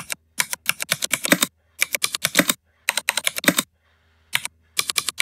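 Computer keyboard being typed on, in quick runs of clicking keystrokes with short pauses between them.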